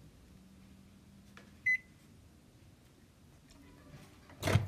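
Microwave oven running with a faint steady hum, its keypad giving one short beep a little under two seconds in; a loud clunk near the end.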